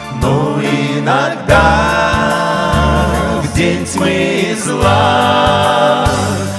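Male vocal group singing a verse in Russian in harmony, over keyboard accompaniment with a steady bass line.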